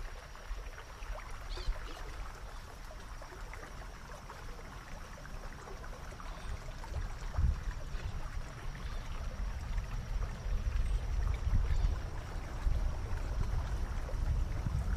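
Wind buffeting the microphone outdoors, a low rumble that grows louder and gustier about halfway through, over a faint steady hiss.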